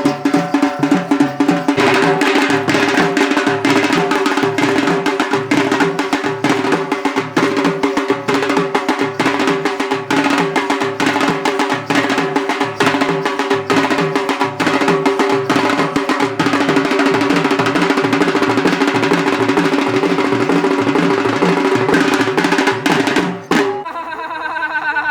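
Folk dance music: rapid, dense drumming over steady held tones. Near the end it cuts off abruptly and a voice begins.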